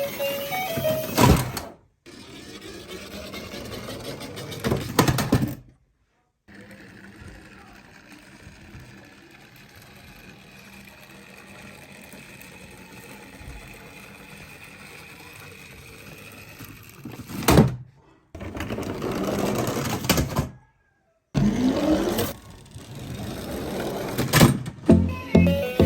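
Toy ambulance miniature car rolling down a slope, its small wheels rattling, in several short runs split by abrupt silent gaps, with the toy's siren sounding at times.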